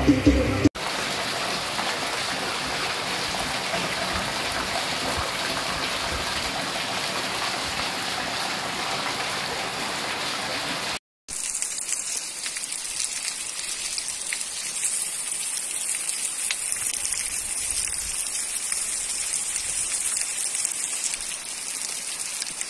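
Heavy rain pouring down on a paved street, a steady hiss. About eleven seconds in the sound drops out for a moment and a second stretch of heavy rain follows, thinner and hissier, with water running off a roof.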